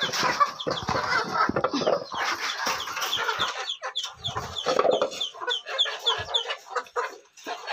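Chickens clucking and squawking excitedly in a dense chorus of short, repeated calls, eager for feed that is about to be given. Scattered knocks and scrapes of handling sound among the calls.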